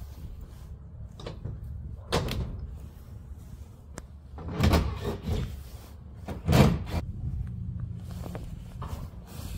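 Clunks and bangs from an old garage door being taken apart from inside: three loud knocks, about two seconds in, about five seconds in and near seven seconds in, with lighter knocks between.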